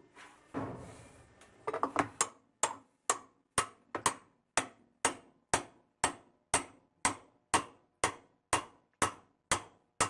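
Hammer tapping a spanner wrench to tighten the left-hand-threaded holding nut on a GE washer's spin drum: sharp, evenly spaced strikes about two a second, each with a short ring, starting about a second and a half in.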